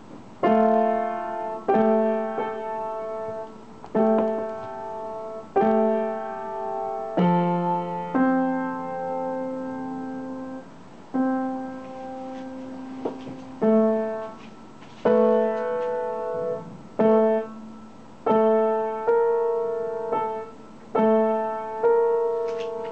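Upright piano played slowly by a young learner: several notes struck together about every one and a half to two seconds and left to ring, with a longer held chord near the middle.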